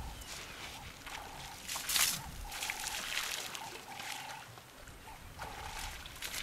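Water splashing and trickling as African elephants drink and wade at the water's edge, trunks dipping into the water, with one louder splash about two seconds in. A short mid-pitched call repeats roughly once a second behind it.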